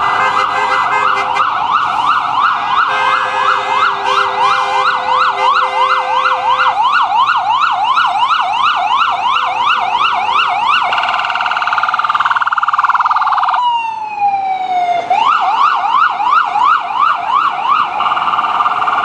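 Electronic siren of a New York ambulance sounding a fast yelp of about three rising-and-falling sweeps a second. About eleven seconds in it switches to a steadier tone, then slides down in pitch and starts the fast yelp again.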